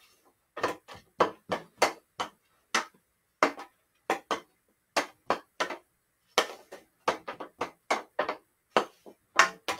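Hockey stick blade knocking a ball side to side in an off-ice stickhandling drill: an irregular run of sharp clacks, about three a second, with a couple of brief pauses.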